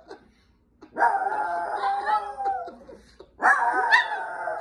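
Two Chihuahuas howling together in long drawn-out howls. After a near-silent first second, one bout of howling runs for about two seconds, then a short break, then a louder bout starts at about three and a half seconds.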